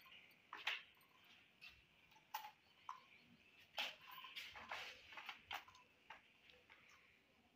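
Faint, irregular clicks and taps of a small spoon and a little plastic toy cup handled by a toddler, about a dozen light knocks spaced unevenly.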